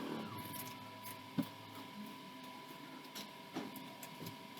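A few sharp clicks or taps over a steady, thin, high-pitched whine. The loudest click comes about one and a half seconds in, with fainter ones near the end.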